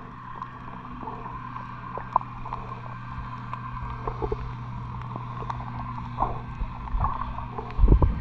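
Muffled underwater sound picked up by a submerged camera: a steady low hum with scattered faint clicks, and a few heavy low bumps near the end.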